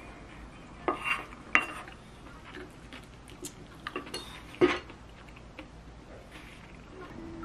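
A spoon scraping and clinking against a porcelain plate while the last bits of food are gathered up: a series of short, sharp clinks, the loudest about four and a half seconds in.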